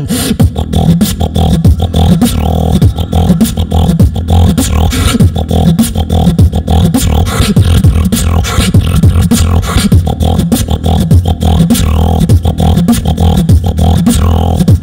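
Solo beatboxing into a cupped handheld microphone, amplified through a PA: a fast, unbroken rhythm of kick, snare and hi-hat sounds over a deep bass line.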